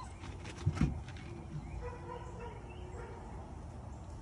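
A dog barking in the distance, a run of short, repeated barks from about two seconds in. About a second in there is one brief louder sound close by.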